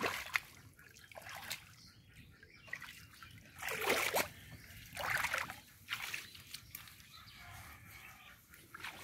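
Shallow pond water trickling and sloshing as someone wades with a hand net, with two louder splashes about four and five seconds in.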